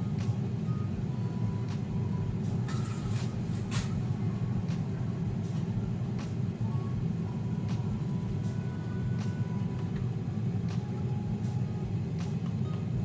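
Gourmia 6.7 L digital air fryer running while it preheats: a steady fan whir.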